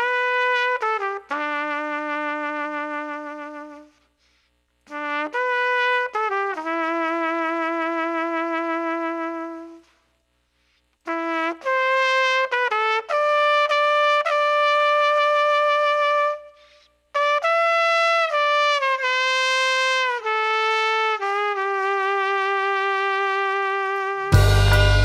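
Unaccompanied trumpet solo: long held notes with vibrato in four phrases, with short pauses between them. About a second before the end a band with a drum kit comes in underneath.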